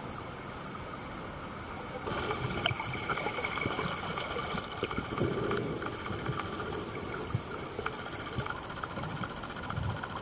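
Muffled underwater sound from a camera submerged in a river: a steady hiss and low rumble that grows louder about two seconds in, with scattered faint clicks and crackles.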